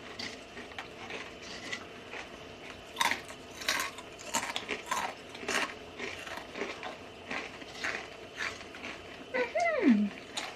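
Potato chips crunching as they are bitten and chewed: irregular sharp cracks. Near the end comes a short vocal sound falling in pitch.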